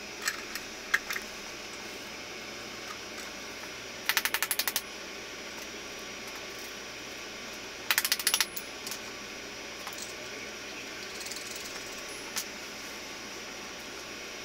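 Two short bursts of rapid metallic clicking, each about ten sharp clicks in under a second and a few seconds apart, from metal parts being worked while an ATV wheel is fitted onto a home-made wheel adapter. A steady low hiss runs underneath.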